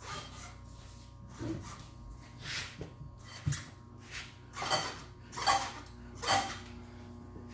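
A man breathing hard in short, noisy exhalations as he strains to shift a heavy rubber excavator track by hand. There is a dull knock about three and a half seconds in, and a steady hum underneath.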